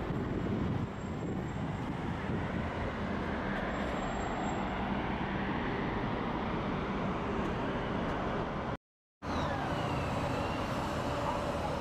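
Steady city traffic and bus running noise, a low rumble with road hiss, heard from a moving bus. The sound cuts out completely for about half a second late on, and a faint high falling squeal follows just after.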